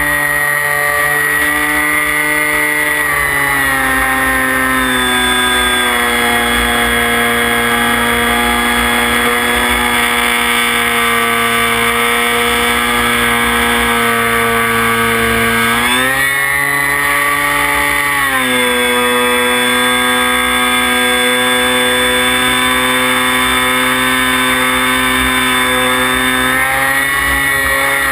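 Electric motor of a radio-controlled F-15 model jet whining steadily in flight, recorded from the onboard camera with wind rush underneath. The pitch drops about three seconds in, rises briefly about halfway through, drops again, and climbs once more near the end as the throttle changes.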